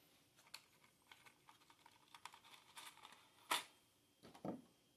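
Light clicks and taps of small parts being handled in a plastic tray of an AR-15 lower parts kit, with two sharper clicks about three and a half and four and a half seconds in.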